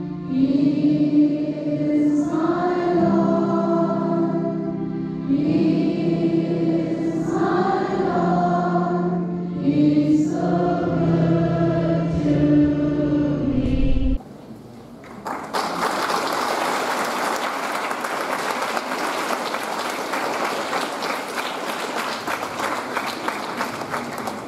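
A hall full of schoolchildren singing a prayer song together in long held notes over a steady low accompaniment. The singing stops about fourteen seconds in, and after a short pause an audience applauds steadily.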